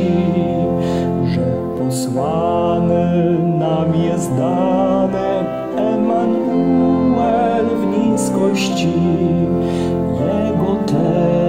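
A man singing a Polish Christmas carol (kolęda) to church organ accompaniment, with held organ chords under the sung line.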